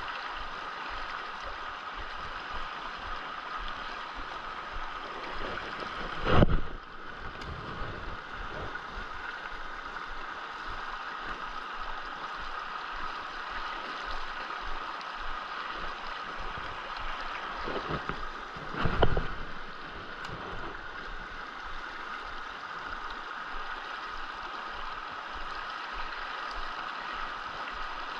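Shallow creek water rushing steadily over rocks and gravel. Two brief, louder noises break through, about a quarter of the way in and again about two-thirds through.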